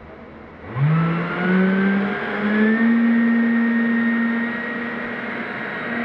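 Electric ducted fan of a 3D-printed seagull RC glider spooling up about a second in, its whine rising in steps and then holding steady at full power, run up for a hand launch.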